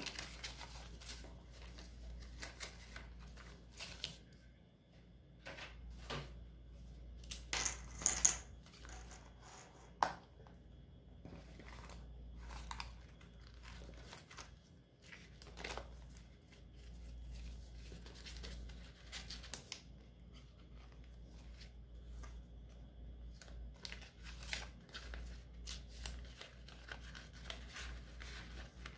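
Paper banknotes and a clear plastic binder pouch rustling and crinkling as they are handled, in short scattered rustles, with a sharp click about ten seconds in.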